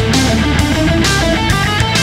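Background rock music with electric guitar and a steady beat.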